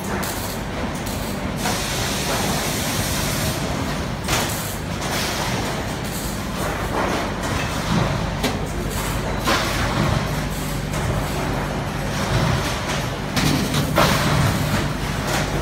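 Cordless drill driving screws into a sheet-steel filing cabinet, its motor running in spells in the second half, with a few sharp knocks of the metal panels over a steady background rush.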